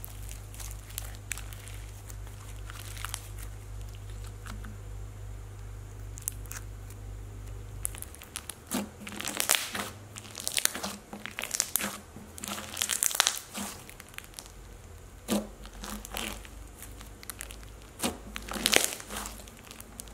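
Thick white-glue slushy-bead slime with clay being squished, stretched and pressed by hand, giving crackling, sticky pops and clicks, sparse at first and frequent from about eight seconds in. A low steady hum runs underneath and stops about eight seconds in.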